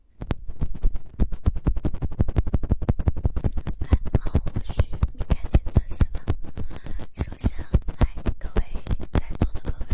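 Rapid ASMR tapping and scratching right on the microphone: a fast, even run of taps, about eight to ten a second, each with a deep thud, with scratchy rustling between them.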